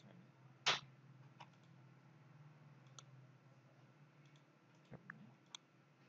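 Computer mouse clicks, sparse and short: one louder click under a second in, then a few fainter ones later, over a faint steady low hum.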